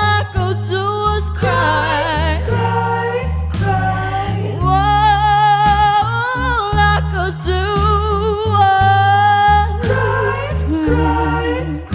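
A young girl singing a song with strong vibrato and long held notes over a backing track with a steady bass line.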